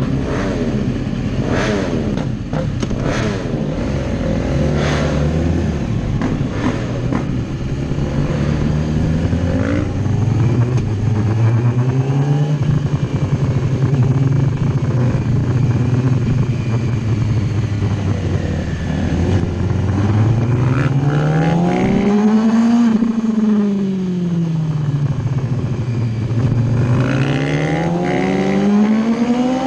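Sportbike engine heard from a camera mounted on the bike, running at low revs at first, then rising in pitch as it revs up about three-quarters of the way in. It falls back off and rises again near the end.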